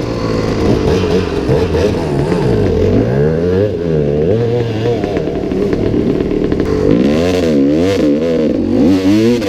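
Gas Gas EC 250 two-stroke enduro motorcycle engine revving, its pitch rising and falling again and again, with quicker, choppier swings near the end.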